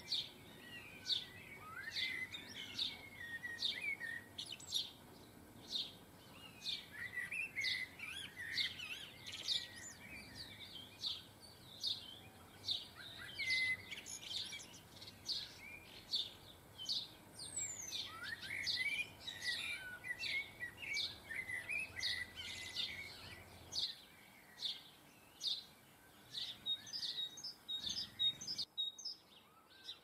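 Young European goldfinches calling at a seed feeder: a steady stream of short, high chirps, several a second, mixed with bouts of twittering. The sound drops out briefly near the end.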